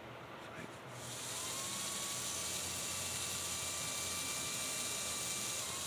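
Small electric motor of a Tyco shark-nose model locomotive running, a steady high whine starting about a second in and stopping near the end. Freshly taken apart and lubed, it is singing pretty good.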